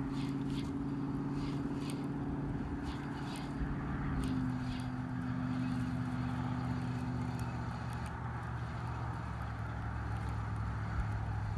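A motor vehicle's engine running steadily, its pitch stepping down about four seconds in and the upper part fading a few seconds later, with faint scattered ticks over it.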